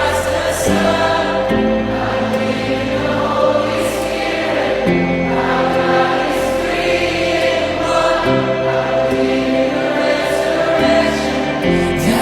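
Choral gospel-style music with sung voices and sustained chords.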